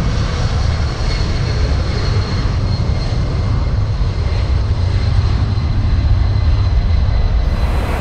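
Boeing C-17 Globemaster III's four turbofan jet engines running as the aircraft moves along the runway: a loud, deep rumble with a steady high whine over it.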